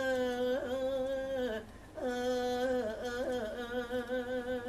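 Male voice singing in Thai lae style, drawing out long wordless notes with vibrato. One held phrase ends about a second and a half in, and after a short breath a second long note carries on past the end.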